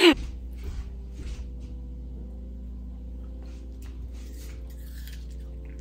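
Soft background music of sustained low chords that change about every two seconds, over a steady low hum.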